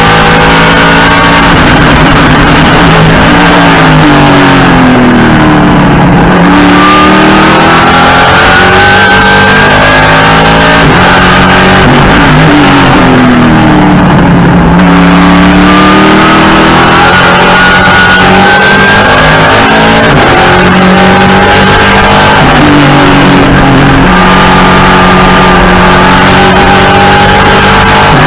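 Race car engine at racing speed, heard loud and close from inside the cockpit. The revs climb and drop at each upshift, then sweep down three times as the driver brakes and downshifts for corners, before rising again.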